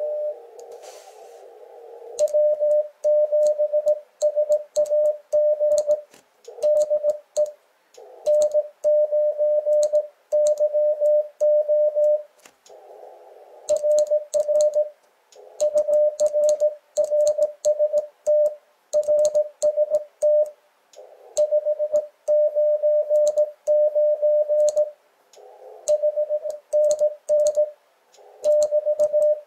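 Morse code (CW) sent by hand on a Morse key, heard as the Icom IC-7300's sidetone: one steady tone of about 600 Hz keyed into dots and dashes, with a click from the key at each element. In the pauses between words the receiver's band hiss comes back.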